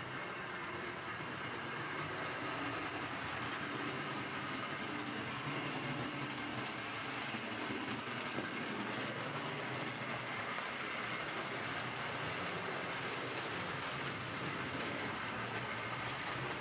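American Flyer S-gauge model train running on the layout track: a steady whir of the motor and rumble of the wheels on the rails.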